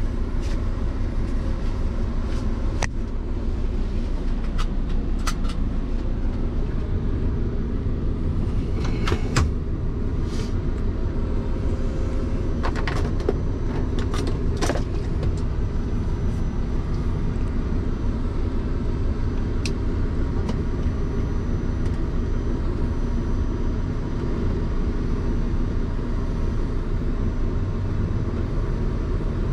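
Scania truck's diesel engine idling steadily, heard from inside the cab. A scatter of sharp clicks and knocks sits over it, mostly in the first half.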